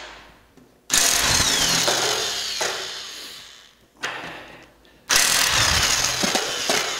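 Impact wrench hammering on stubborn nuts of aircraft wing-spar bolts in three runs: about a second in, a brief one near four seconds, and one just after five seconds. Each starts suddenly and trails off. The nuts are locked on staked bolt ends and the bolts stay put while the gun works.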